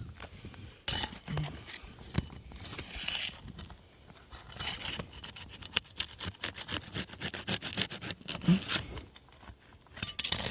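Irregular scraping, rubbing and sharp clicks and snaps of brittle 3-tab asphalt shingles being lifted and worked loose during removal on a roof, with one louder snap near the end.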